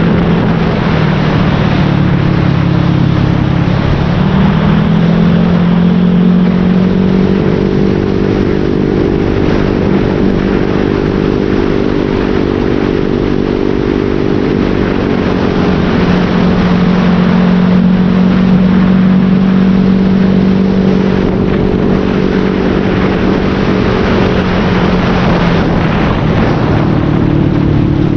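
Motorcycle fitted with an SC-Project aftermarket exhaust with a modified elbow pipe, running under way at a steady cruising pace. The engine note rises about four seconds in, holds, and drops near the end.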